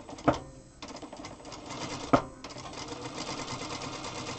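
Zoje ZJ9703AR-D4J/02 industrial sewing machine stitching in quick short runs, a fast even ticking of the needle, while hemming a tiny double-folded sleeve edge. A sharp clack sounds near the start and another about two seconds in, where the stitching briefly stops.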